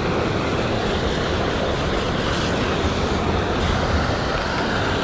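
Steady rush of water pouring from a canal spillway outlet into the canal.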